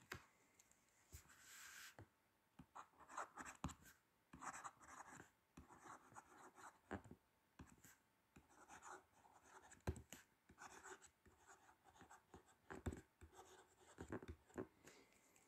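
Faint scratching of handwriting: a pen moving over the writing surface in short, irregular strokes, with a few sharp taps between words.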